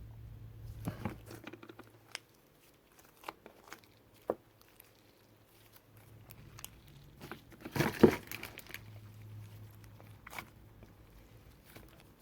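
Thick, glossy slime being handled and squeezed: scattered sticky clicks and squelches, with a louder burst of crackling pops about eight seconds in.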